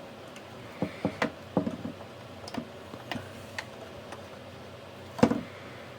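Scattered light clicks and taps of small plastic radio housing parts and tools being handled, with one louder knock about five seconds in.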